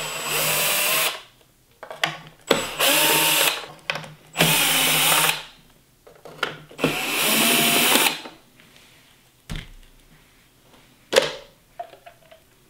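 DeWalt cordless drill driving screws out of a hoverboard's plastic shell in four short bursts of about a second each, its motor whine bending as it speeds up and slows. A knock and a sharp click follow near the end.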